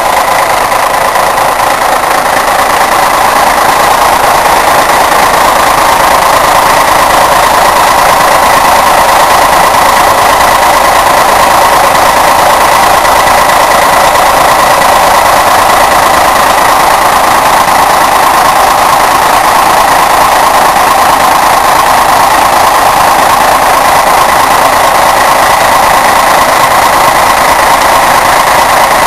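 Scania L113 bus's six-cylinder diesel engine running loud and steady, held at an even pitch without rising or falling.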